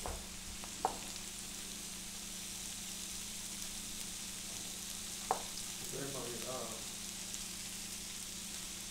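Steady sizzle of food frying in a hot pan on the stove, with two sharp clicks, about a second in and about five seconds in.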